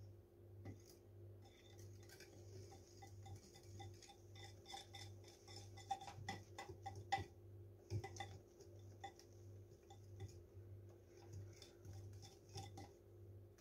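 Wire hand whisk beating cake batter in a glass bowl, its wires ticking quickly and irregularly against the glass, over a faint steady low hum.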